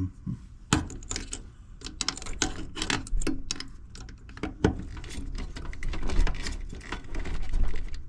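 Irregular metallic clicks, knocks and rattles as a screwdriver works at prying a dual run capacitor loose from its mounting inside a sheet-metal air-conditioner cabinet.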